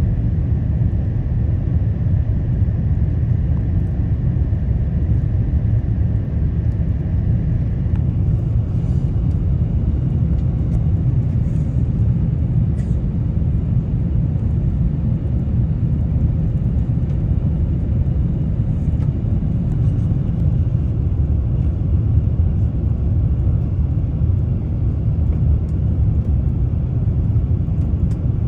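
Steady low rumble of an airliner's engines and airflow heard inside the cabin, with a faint thin tone for the first few seconds and a few faint ticks later on.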